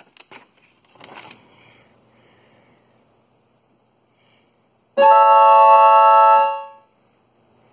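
A single A major chord played on an electronic keyboard. It starts suddenly about five seconds in, holds at an even level for about a second and a half, then fades out quickly when released.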